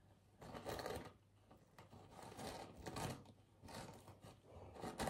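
Faint rustling and crinkling of a four-ply paper tissue being handled as its layers are peeled apart, coming in a few short bursts.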